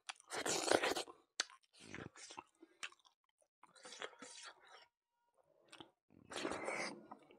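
A man chewing rice and pork with his mouth open and smacking his lips, in irregular bursts every second or two, loudest about a second in.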